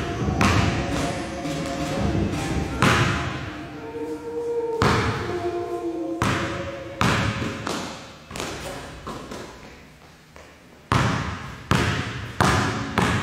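Basketball bouncing on a gym floor, single echoing thuds a second or two apart. The bounces pause briefly near the end, then come quicker.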